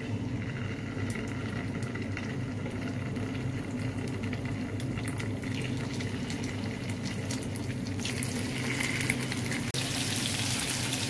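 Marinated fish pieces shallow-frying in hot oil in a nonstick pan: a steady sizzle with small crackles as pieces are laid in, growing louder in the last few seconds as the pan fills.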